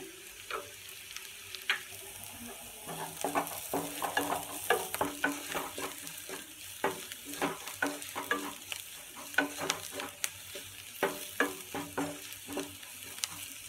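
Wooden spatula scraping and knocking against a nonstick frying pan as frying onions are stirred, about three strokes a second from about three seconds in, over a steady sizzle of oil.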